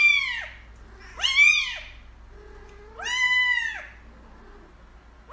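Grey kitten meowing, three high-pitched calls about one and a half to two seconds apart, each rising and then falling in pitch.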